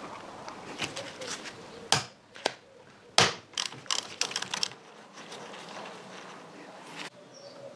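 Metal clicks and sharp knocks from hand work on a Harley Sportster's front end. The loudest knocks come about two and three seconds in, then a quick cluster of clicks, with a light ratcheting between them.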